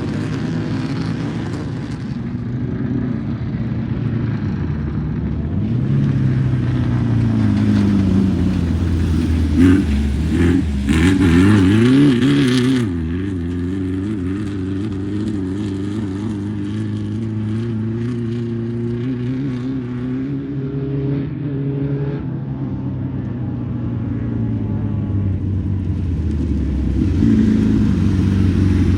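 Desert off-road race car with an air-cooled VW flat-four engine running the course, its engine revving up and down over rough ground. It is loudest as it passes close about ten to twelve seconds in.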